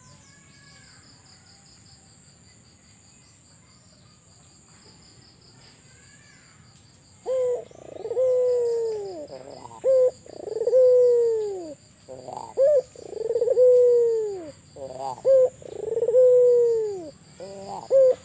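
Albino ringneck dove cooing repeatedly: from about seven seconds in, a short clipped note followed by a long coo that falls in pitch, five times over. Before it starts there is only a faint, steady, high pulsing trill with a few small chirps.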